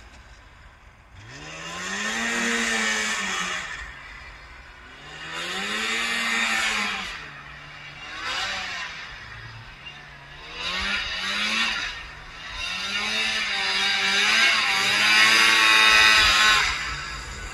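Snowmobile engine revving up and easing off about five times as the machine accelerates and slows, its pitch rising and falling with each swell; the last and loudest surge comes near the end.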